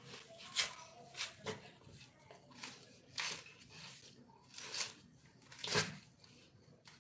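A dog gnawing a coconut, tearing and crunching the dry husk fibres with its teeth in short, irregular rips, about six sharp ones.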